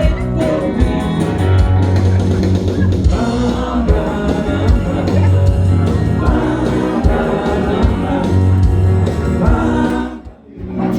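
Live rock band playing, with singing over guitar, bass and drum kit. The music drops away for a moment near the end, then comes back in.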